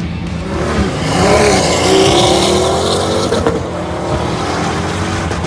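A supercar's engine revving up under hard acceleration. Its pitch climbs for about two seconds and is loudest here, then breaks off and eases back about three and a half seconds in.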